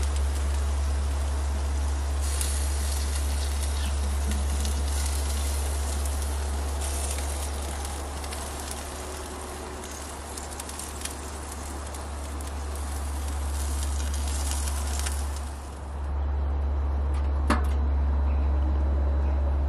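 Chicken and potatoes sizzling over hot charcoal on a kettle barbecue, a steady crackling hiss with many small pops, over a steady low hum. About sixteen seconds in the sizzling stops, leaving the hum and a couple of sharp clicks.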